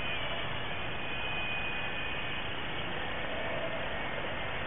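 Small foam RC plane in flight, driven by two small quadcopter motors and heard through its onboard camera: a steady rush of air with a thin motor whine.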